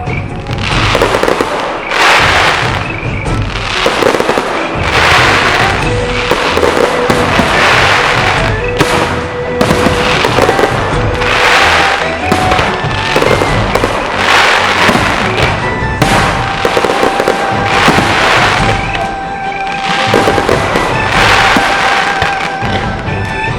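Fireworks show: a continuous barrage of bursting, crackling fireworks, with a fresh burst roughly every second.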